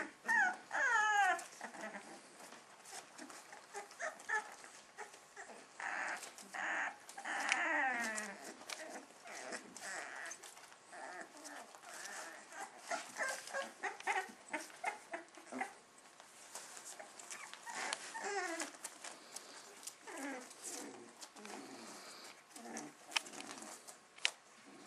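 Young puppies whimpering and yelping as they wrestle, with high whines that fall in pitch, loudest about a second in and again about seven seconds in, amid scattered small clicks and scuffles.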